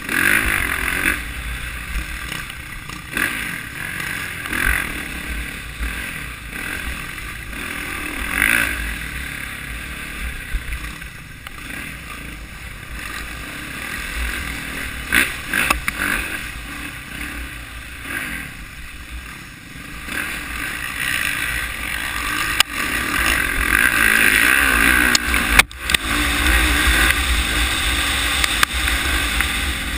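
Off-road dirt bike engine running under load, its revs rising and falling as the bike rides a rough trail, heard from a camera mounted on the bike with wind rumbling on the microphone.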